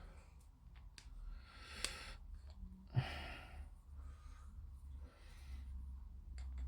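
Faint breathing close to the microphone, a few slow breaths or sighs, with a couple of soft clicks and a low steady hum underneath.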